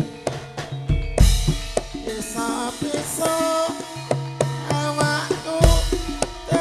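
Javanese gamelan music accompanying tayub dancing, played without a singer: drums beat a busy, lively pattern with deep bass strokes about a second in and again near the end, over ringing pitched metal instruments.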